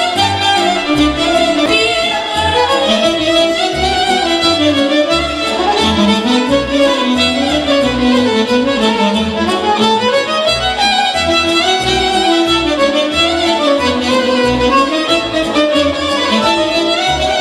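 Background music: a fiddle playing a melody that rises and falls over a steady bass beat.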